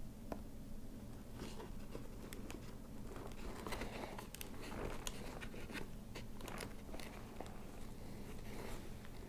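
Hands handling a motorcycle helmet's padded liner and headset parts: fabric and plastic rustling and crinkling with scattered small clicks, over a steady low hum.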